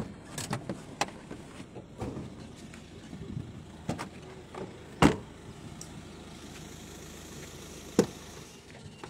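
Mahindra Scorpio SUV doors being opened and shut as people get out, with a series of clunks and knocks and handling noise. The loudest clunk comes about five seconds in and another sharp one about eight seconds in.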